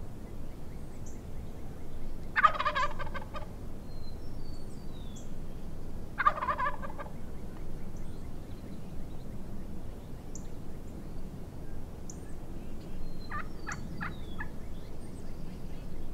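Wild turkey gobbler gobbling: two loud rattling gobbles, the first about two seconds in and the second about six seconds in, then a fainter broken call near the end.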